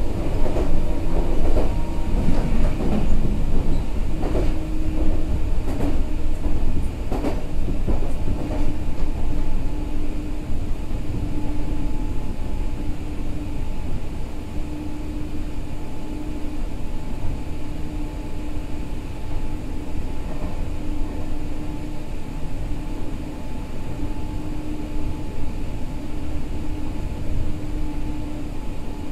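Meitetsu 6000 series electric train running on track. Wheels clack over rail joints for the first several seconds, then settle into a steadier rumble with a low hum that comes and goes every second or two, slowly getting a little quieter toward the end.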